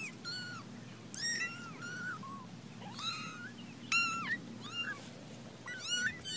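Very young kittens mewing: a string of short, high-pitched mews, each rising then falling in pitch.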